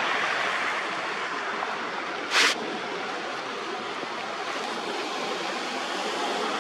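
Steady rushing outdoor noise, like wind or distant running water. About two and a half seconds in, a single short, high hiss stands out above it.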